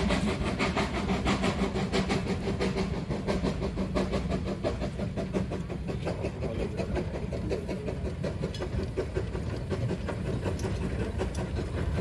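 Narrow-gauge steam locomotive working a passenger train, its exhaust chuffing in quick, regular beats of about four to five a second.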